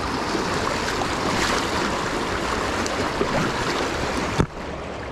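Rushing river water, a steady wash of noise around a wading angler. A sharp click a little past four seconds is followed by an abrupt drop in level.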